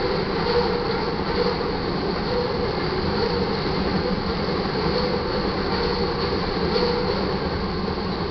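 Crude oil tank cars of a freight train rolling past: a steady rumble of steel wheels on the rails.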